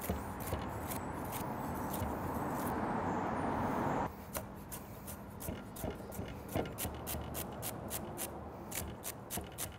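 Chef's knife dicing bell pepper and celery on a wooden cutting board. A steady hiss fills the first few seconds; from about four seconds in come quick, sharp chops, about four a second.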